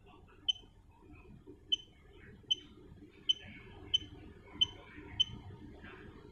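Key beeps from the control panel of a Juki LBH-1790 buttonhole machine, as its buttons are pressed to step through the setting parameters. There are seven short, high beeps at uneven spacing, about one a second, over a faint low hum.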